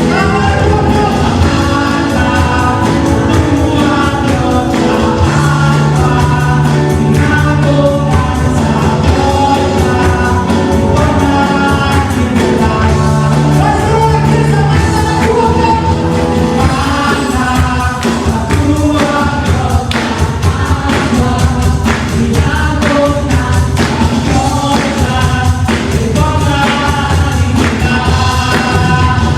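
Christian worship music: a band playing a steady beat under group singing.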